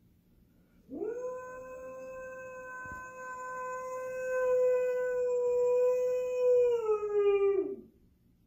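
Siberian husky giving one long howl: a quick rise in pitch about a second in, a steady held note for several seconds, then a sagging fall as it trails off near the end.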